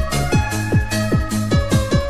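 Electronic dance music with a fast, steady kick-drum beat under held synth notes.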